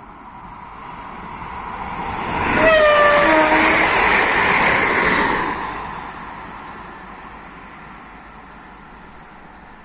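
An electric multiple unit passing at speed: its rushing noise builds, is loudest a few seconds in, then fades as it goes away. A short horn blast dropping in pitch sounds about three seconds in, as it draws level.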